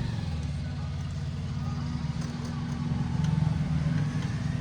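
Low, steady engine rumble, swelling slightly about three seconds in.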